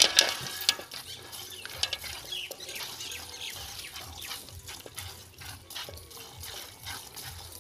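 Streams of milk squirting into a white plastic bucket as a cow is milked by hand, in a steady rhythm of short spraying squirts.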